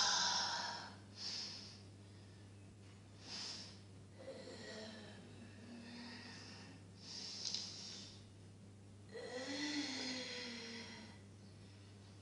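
A person's breathing and wordless vocal noises: several sharp, hissy breaths with short voiced sounds between them and a longer voiced sound near the end.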